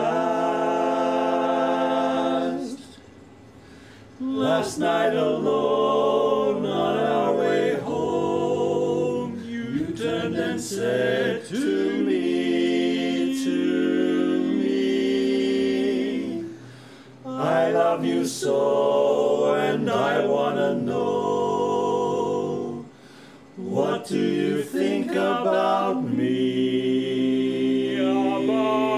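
Male barbershop quartet singing a cappella in four-part close harmony: tenor, lead, baritone and bass voices holding chords together. The singing opens on a held chord and breaks off briefly between phrases about three, sixteen and twenty-three seconds in.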